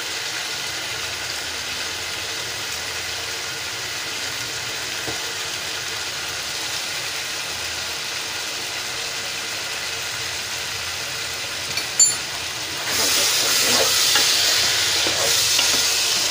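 Chicken curry cooking in a pot on the stove, with a steady sizzling hiss. A sharp clink comes about three-quarters of the way through, then the hiss grows louder as the pot is stirred.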